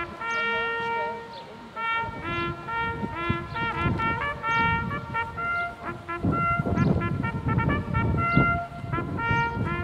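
Fürst-Pless hunting horn played solo: a melody of separate notes, some short and quick, some held.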